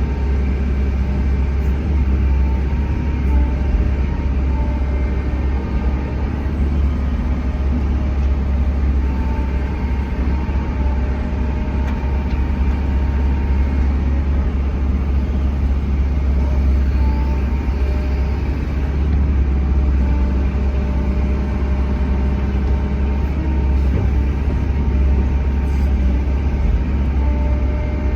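Bobcat E145 excavator's diesel engine running steadily while it works, a heavy low rumble with faint tones coming and going above it.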